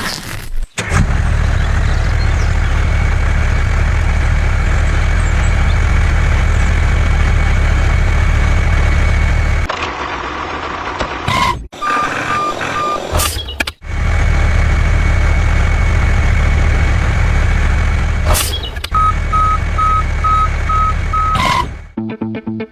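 Truck engine running steadily, with a reversing alarm beeping in evenly spaced short beeps twice, about halfway through and again near the end. The sound cuts off and restarts abruptly several times.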